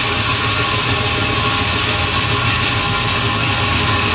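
Band saw running and cutting slowly through a thick block of wood: a steady motor hum under the noise of the blade in the wood, unchanging in level.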